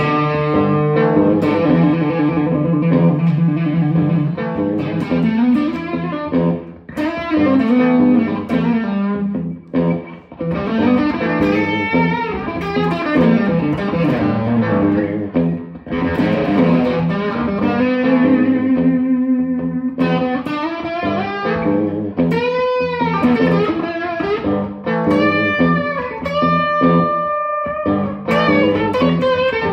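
Electric guitar soloing in single-note lines. About 22 seconds in there is a bent note shaken with wide vibrato, and near the end come a few held notes with vibrato.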